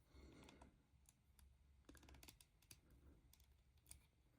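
Faint, scattered clicks of plastic LEGO bricks being handled and pressed together, irregular and spread across the whole stretch.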